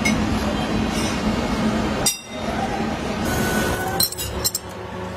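Workshop machinery running with a steady hum, and sharp metallic clinks of steel parts. One clink comes about two seconds in, after which the hum is quieter, and a few quick clinks come close together near the end.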